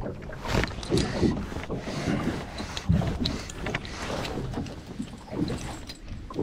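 Small waves slapping against the hull of a drifting riveted metal fishing boat, with wind on the microphone and irregular knocks, the loudest about three seconds in.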